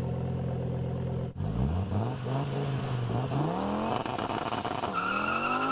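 Car engine idling steadily, then, after a sudden cut about a second in, a different car engine revved in several rising and falling blips and a longer climb near the end, with a faint high whine rising with it.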